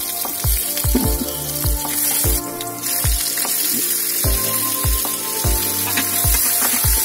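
Vegetables sizzling as they fry in hot oil in a metal kadai, a steady hiss that drops out briefly about two and a half seconds in. Under it runs background music with a steady bass-drum beat.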